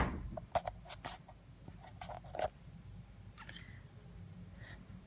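A few light knocks and scrapes over the first two and a half seconds, then faint steady room hum.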